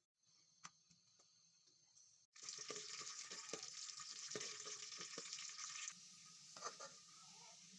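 Food sizzling in hot oil in a pan while a spoon stirs it, with short scraping clicks. The sizzle starts abruptly and loud about two seconds in and eases to a softer hiss about six seconds in.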